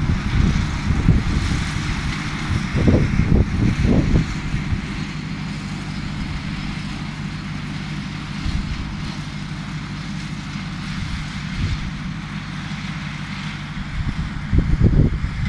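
Wind buffeting the microphone in gusts, strongest in the first four seconds and again near the end. Under it runs the steady drone of a distant John Deere 1030's three-cylinder diesel tractor mowing with a drum mower.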